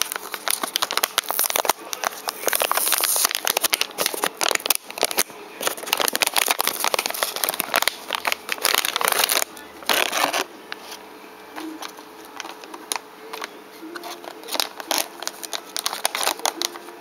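A metallised anti-static bag crinkling and crackling as it is handled and a small circuit board is slid out of it. The crinkling is dense for about the first ten seconds, then thins out to scattered rustles.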